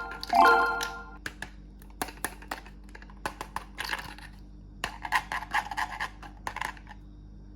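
A chime note fades out, then a run of light clicks and small rattles, as of small hard objects being handled and set down, for about five seconds before falling quiet.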